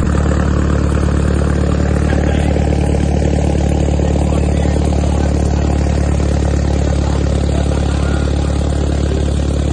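Old truck's engine running at a steady low drone while the truck wades through water up to its cab roof.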